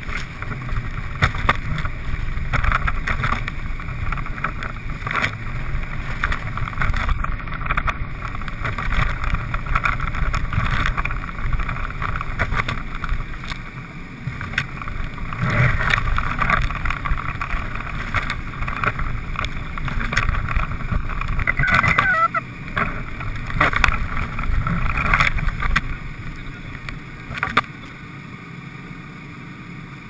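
Car driving over snow-packed road: steady engine and tyre rumble with many short knocks and bumps, dropping quieter in the last few seconds.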